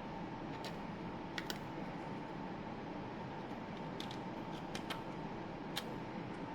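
Sharp, irregular plastic clicks from a 3D-printed utility knife being handled and its mechanism worked, about ten in all and bunched together in the second half. Under them is a steady hiss with a faint steady hum.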